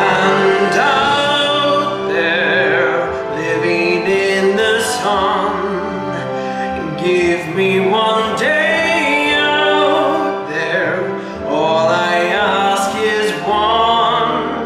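A man singing a sustained show-tune melody in English over an instrumental karaoke backing track.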